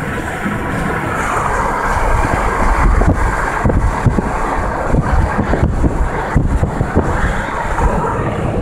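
Car driving at highway speed, heard from inside the cabin: a steady rush of road and tyre noise with wind, swelling and dipping unevenly in the middle.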